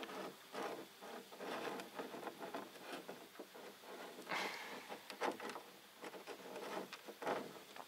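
Close rustling and small irregular clicks of hands pressing and rubbing crumbly oilcake (zhmykh) bait onto a fishing rig, with a few louder scrapes around the middle.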